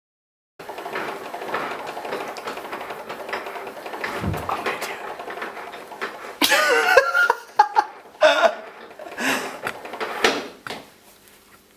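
A person's voice in a small room, with loud wavering cries between about six and eleven seconds in, over a steady background of room sound.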